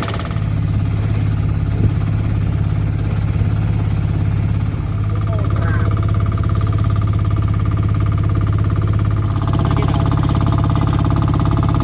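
An engine running steadily with a low, even hum, getting a little louder near the end.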